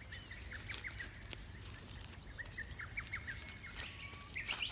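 Small birds chirping: short high chirps in quick runs, with a few faint clicks.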